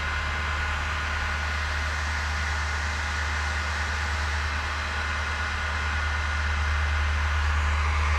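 Steinel heat gun running, its fan blowing a steady stream of air with a low hum underneath, getting a little louder near the end.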